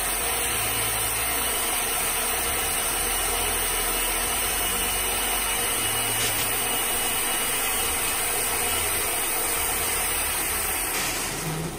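Home-built gas-turbine jet engine running with its afterburner lit: a loud, steady roar and hiss with a thin steady whine in it. Near the end the hiss softens.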